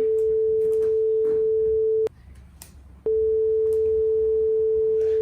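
Headphone stereo-test tone: a steady, plain mid-pitched tone that breaks off for about a second about two seconds in, then comes back. The break is the test switching from the left channel to the next channel.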